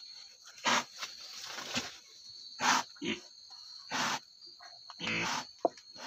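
Sow in labour grunting in short, heavy breaths about once a second as contractions come, one longer, deeper grunt about five seconds in.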